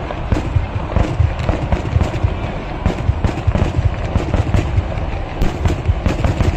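Kerala temple-festival fireworks (vedikettu): a dense, unbroken barrage of explosive bangs, several a second, overlapping one another with heavy low booms.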